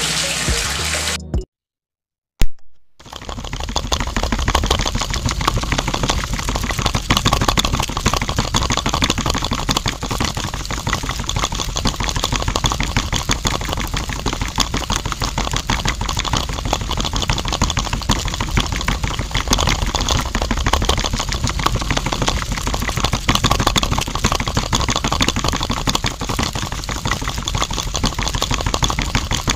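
Water poured into a small container, then a sharp click after a short silence. From about three seconds in, a small electric motor under a miniature toy drum runs with a fast, even rattling clatter, swirling sand and water inside the drum.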